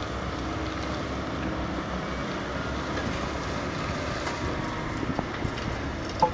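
Kobelco 220 hydraulic excavator's diesel engine running with a steady hum, mixed with wind noise on the microphone.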